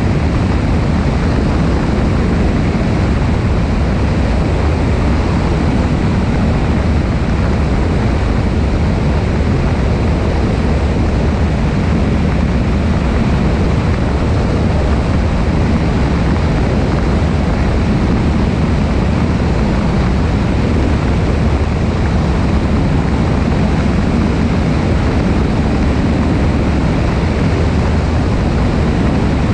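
Cessna 172's piston engine and propeller droning steadily in flight, mixed with wind rushing past a wing-mounted camera.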